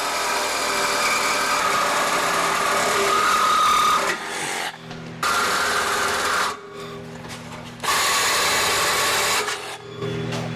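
Power tool cutting through the old steel exhaust pipe, in three long bursts with short pauses between.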